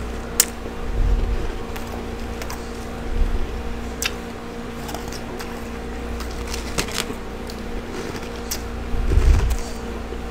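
Close-miked crunching and chewing of hard freezer frost, with scattered sharp crackles and a few low thuds, over a steady hum.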